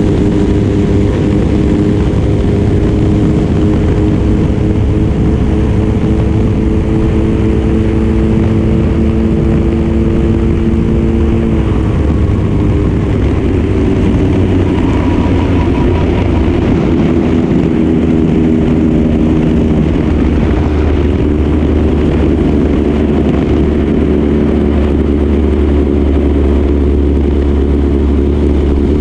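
Junior dragster's single-cylinder engine running steadily, heard from on board over wind and rolling noise; the engine note shifts and drops slightly about twelve seconds in.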